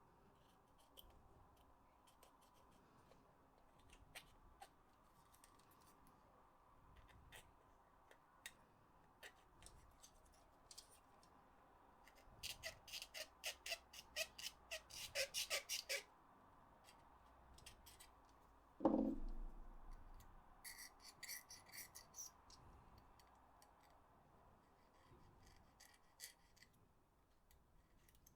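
Faint small clicks and scraping of hand tools working on a PS4 controller's plastic parts during cleaning. About halfway through there is a run of rapid clicks, and a single knock comes about two-thirds of the way in.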